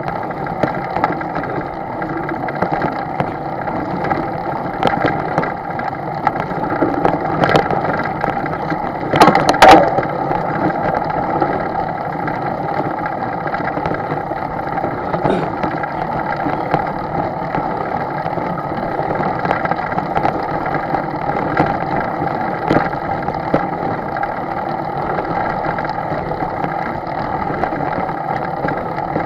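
An engine running at a steady speed, with scattered knocks and a louder clatter about nine to ten seconds in.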